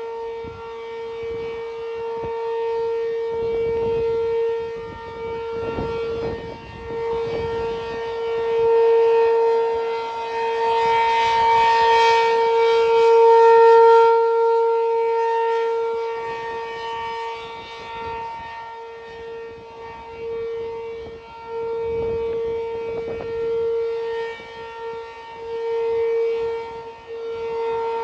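P-15 outdoor warning siren sounding a steady alert tone: one held pitch with overtones, swelling and fading in loudness.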